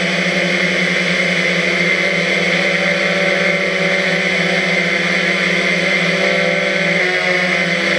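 Quadcopter's electric motors and propellers whirring steadily while it hovers, heard from the camera on board. The pitch shifts slightly about seven seconds in.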